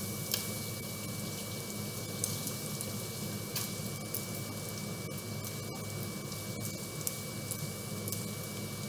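Bacon strips frying in a nonstick pan: a steady sizzle with scattered sharp pops of spitting fat.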